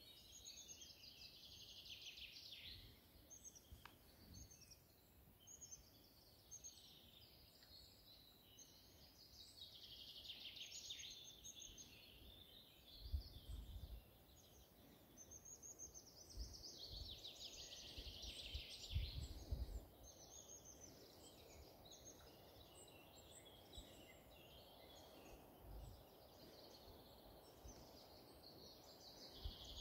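Faint songbird song: phrases of a couple of seconds, repeated every few seconds. A few dull low thumps come about halfway through.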